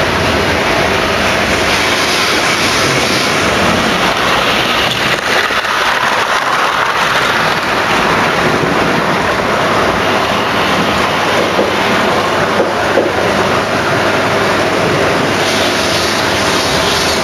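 Electric model King class locomotive running round the layout with its train: a steady whirr of the motor and wheels on the rails.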